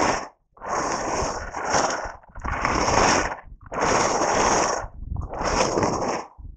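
Skis carving turns on groomed snow: a scraping hiss of the edges on each turn, about one a second, five in a row, with wind rumbling on the camera microphone.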